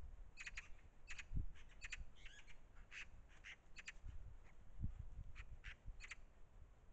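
Eurasian magpie giving harsh, clipped calls, faint and repeated irregularly, often in quick pairs. Two low thumps come about one and a half seconds and five seconds in.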